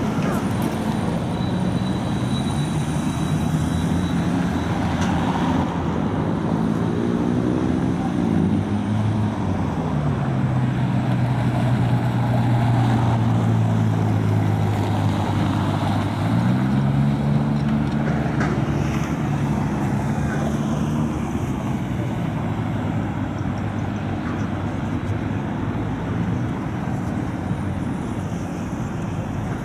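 Street traffic with a large vehicle's engine running close by: its pitch drops about eight seconds in, holds low and steady, then rises again at around sixteen seconds as it speeds up, before fading into the general traffic noise.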